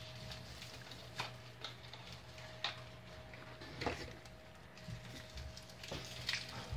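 A handful of small, irregular clicks and sticky taps from hands kneading and pulling edible marshmallow slime, over a faint steady hum.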